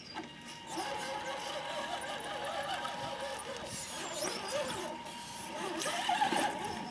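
Axial SCX10 RC crawler's electric motor and drivetrain whining as the truck climbs a concrete ledge, starting under a second in, over a steady high tone, its pitch wavering with throttle and load.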